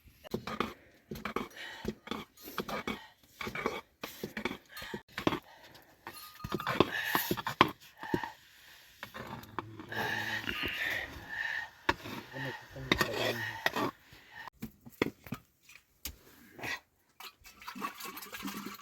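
Irregular clicks and knocks, with a person's voice at times, loudest between about six and fourteen seconds in.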